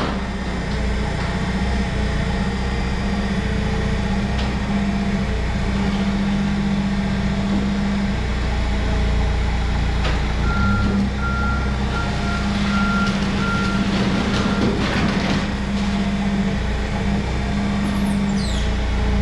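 Ford F350 pickup truck's engine running steadily. About halfway through, a run of high electronic beeps sounds for about four seconds, and a brief high falling squeal comes near the end.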